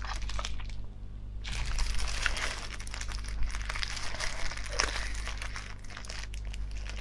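Thin disposable plastic gloves crinkling as hands work a marinated abalone out of its shell, with small clicks. There is a short lull about a second in.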